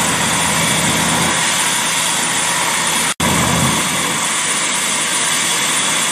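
Bell 407GX helicopter on the ground with its rotor turning: a steady, loud rush of turbine and rotor noise, broken by a momentary gap about three seconds in.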